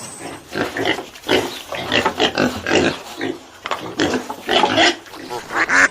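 A farm animal giving a quick series of about a dozen short calls.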